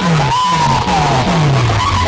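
Loud dance music played through a DJ sound system: a deep bass note that slides down in pitch and repeats about twice a second, with a high tone gliding slowly downward over it.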